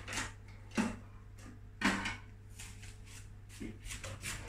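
A few short knocks and rustles of kitchen handling, like drawers or cupboards being opened and shut, over a steady low electrical hum.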